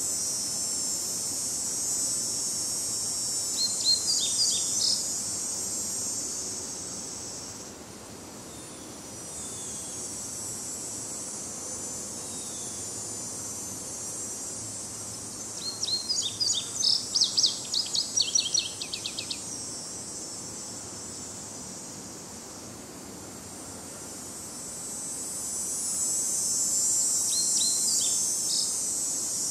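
A songbird sings three phrases of rapid repeated notes, the longest near the middle, over a steady high insect chorus that drops away after about eight seconds and swells back near the end.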